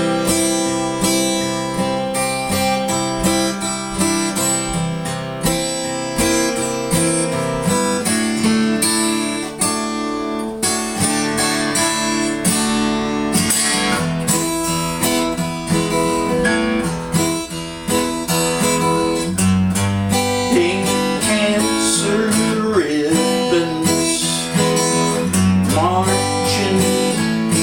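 Instrumental break of a song: strummed acoustic guitar chords, with notes bending in pitch over the strumming in the second half.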